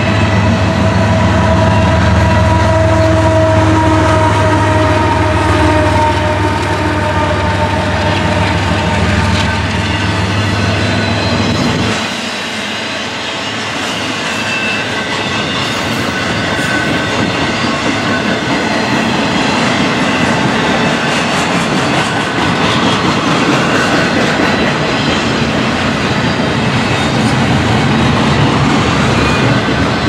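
Union Pacific freight train passing close by. A mid-train diesel locomotive's engine drone carries on for about the first twelve seconds and drops away. After that the double-stack container cars roll past with steady wheel clatter on the rail joints.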